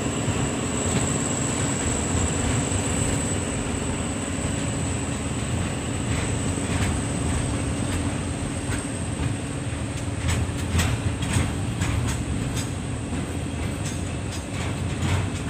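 Diesel-hauled State Railway of Thailand freight train running through the station: a steady low rumble with a thin high whine, and wheel clacks over the rail joints that start about six seconds in and come more often near the end.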